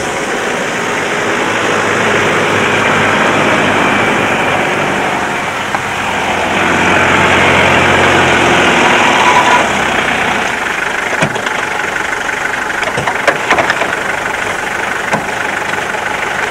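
A motor vehicle's engine running under a loud rush of wind noise. The low engine drone fades out about nine seconds in, leaving the rushing noise with a few sharp knocks.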